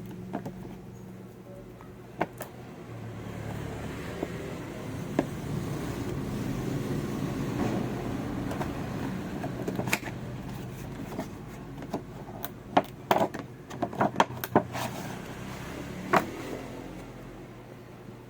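Doll packaging being handled and opened: rustling, then a run of sharp clicks and taps in the second half, over a steady low hum.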